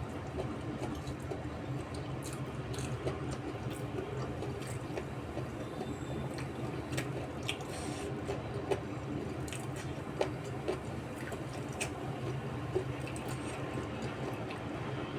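A person chewing and eating food close to the microphone, with scattered wet clicks and smacks over a steady low hum.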